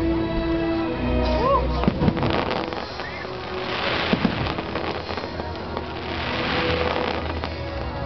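Fireworks going off over a music soundtrack, with several sharp bangs in the first two seconds and patches of crackling later.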